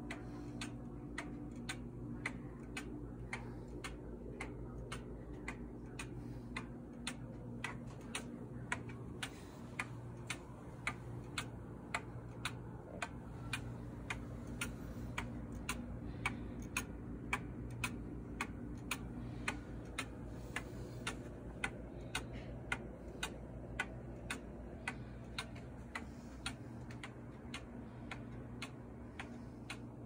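Weight-driven carved cuckoo-and-quail wall clock ticking steadily, about two ticks a second.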